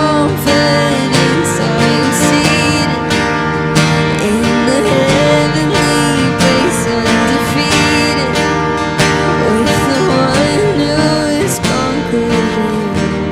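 Worship band music led by guitar, with a gliding melody line over held chords and a steady beat, and no sung words.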